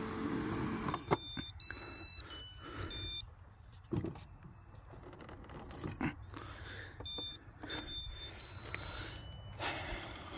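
Luba 5000 AWD robot lawn mower, stuck high-centred on a tree root: its motor hum cuts off about a second in, then it sounds two sets of short electronic beeps in several pitches, one starting about a second in and one about seven seconds in. A few knocks come as the mower is handled to free it.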